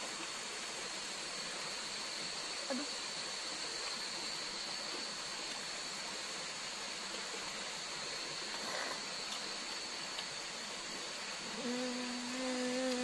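Steady rushing water noise with a constant high, thin insect drone over it. Near the end a person hums one short held note.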